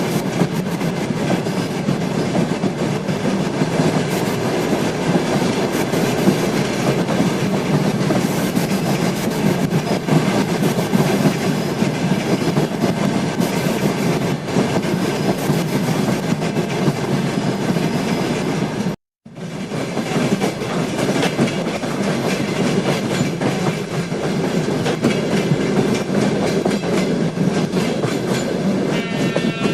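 A train running past at speed, its wheels clacking steadily over the rail joints under a continuous rumble. The sound drops out suddenly for a split second about two-thirds of the way through, then resumes just as before.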